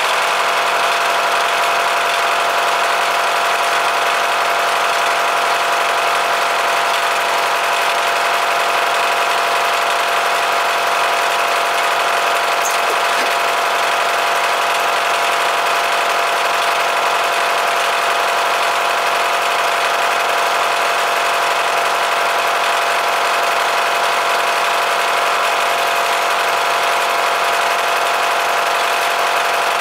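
Three-phase milling machine running a four-flute cutter through a steel lathe tool holder in a steady cut. A constant hum of machine tones sits under the hiss of the cutting, unchanged throughout.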